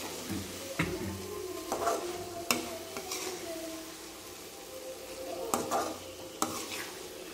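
A perforated metal spatula stirring and scraping prawns in thick masala around a metal kadai, over a steady sizzle of the frying masala, with a few sharp clicks of the spatula striking the pan.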